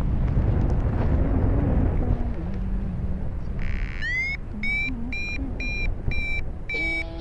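Wind buffeting the microphone, a heavy low rumble. About halfway in, a run of short high-pitched tones starts, roughly two a second; the first slides up in pitch.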